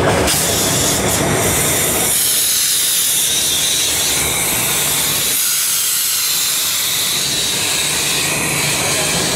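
Steam hissing loudly and steadily from a 1922 Vulcan 2-4-0 steam tank locomotive as it rolls slowly past, starting just after the beginning, with a low rumble under it at times.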